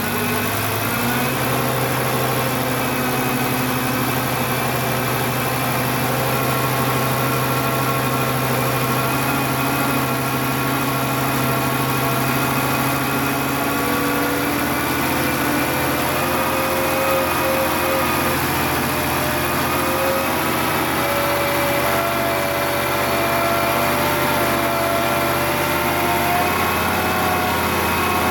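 Volvo 850 T5's turbocharged 2.3-litre inline-five running with the throttle held open by hand above idle. The revs rise a little at the start, then hold steady.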